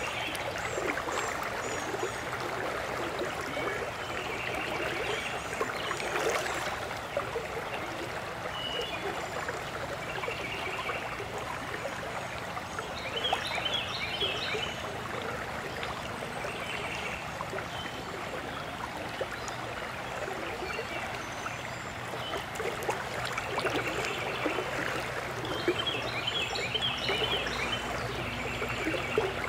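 Shallow creek water flowing steadily, with short high chirps now and then.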